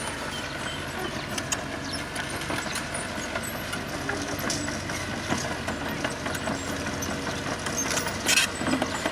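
Diesel engine of heavy road-construction machinery running steadily, with scattered clicks and a brief loud hiss or scrape about eight seconds in.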